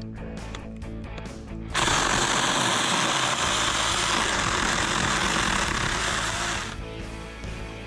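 Saker mini cordless electric chainsaw running for about five seconds, starting suddenly about two seconds in and stopping shortly before the end, over background music.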